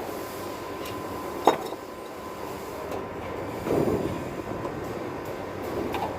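Brazing torch flame running with a steady rushing roar while copper refrigerant lines are brazed onto a replacement air-conditioner compressor, with a single sharp metallic clink about a second and a half in.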